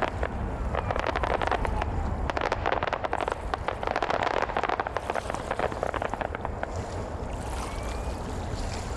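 Aerial fireworks crackling: a dense run of rapid pops over a low rumble, thinning out after about five seconds.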